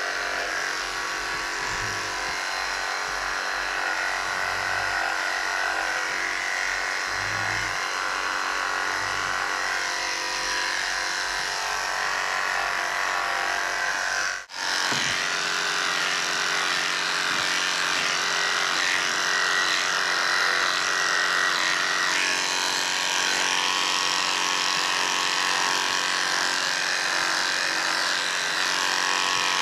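Electric pet clippers running steadily while clipping a cat's coat, a constant buzzing hum that cuts out for an instant about halfway through.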